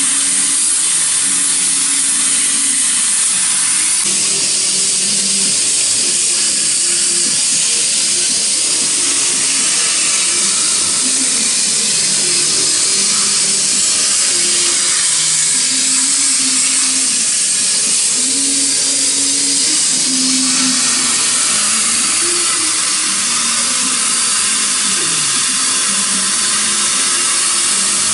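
CO2 laser cutter running while it cuts fabric: a steady loud air hiss, with short hums that keep changing pitch as the gantry motors move the cutting head around the shapes.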